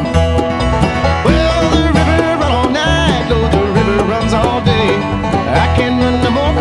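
Background music with a steady beat and a bass line under a plucked-string melody.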